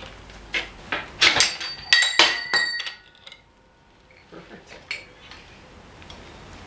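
Steel coil spring and strut parts of a Honda CR-V strut clinking and clanking as they are handled by hand: several metallic knocks in the first three seconds, some leaving a brief ringing tone, then a few lighter clicks.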